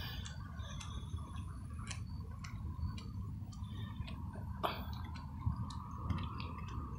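Walking footsteps on a running track: light, irregular clicks over a steady low rumble.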